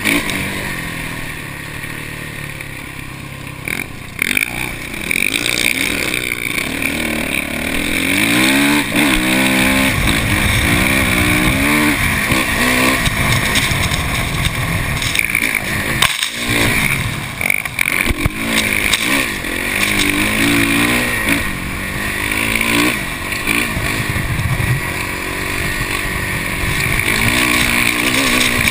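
Dirt bike engine revving up and falling back again and again as it is ridden hard through the sand, with wind rushing over the camera microphone. The sound briefly drops out about halfway through.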